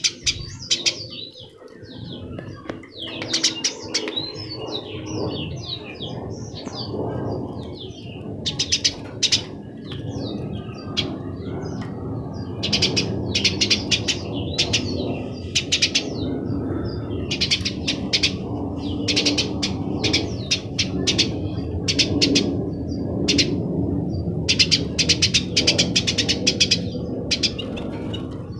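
Small birds chirping in repeated quick bursts of sharp, high calls, over a steady low background noise.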